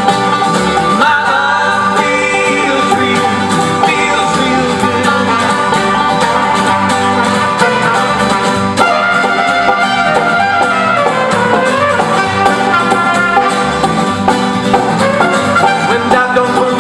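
Acoustic folk band playing an instrumental break, quick plucked string notes carrying the melody over a steady rhythm.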